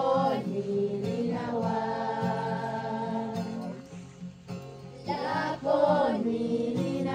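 Background music: a sung melody with long held notes and short gliding phrases over a steady accompaniment.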